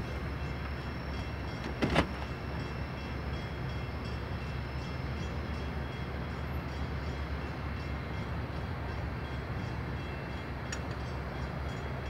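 Steady low rumble of idling traffic in a queue, with a single brief knock about two seconds in.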